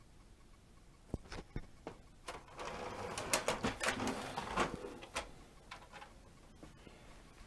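Plastic toy fire engine handled by hand: a few sharp clicks, then about two and a half seconds of rapid plastic clicking and rattling as its turntable ladder is moved, tailing off into a few more clicks.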